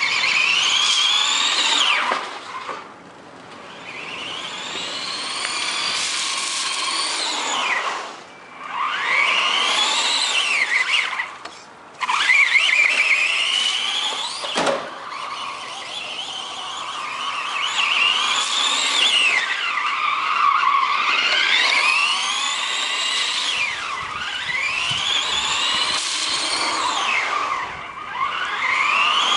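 Electric motor of a radio-controlled car whining, rising and falling in pitch again and again as the throttle is worked, over a steady hiss.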